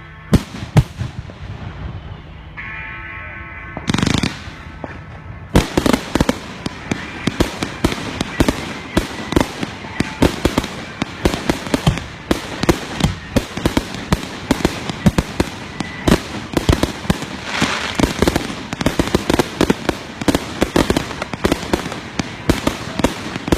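A fireworks display: two sharp bangs near the start, then from about six seconds in a dense barrage of rapid cracks and bangs, many shells going off in quick succession.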